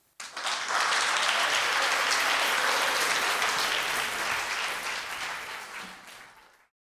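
Applause, starting suddenly, holding steady for several seconds, then fading away near the end.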